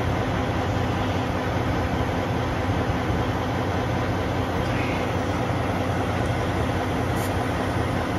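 Steady hiss of compressed air from a glad-hands air hose chuck held on a truck tire valve, over a low steady hum.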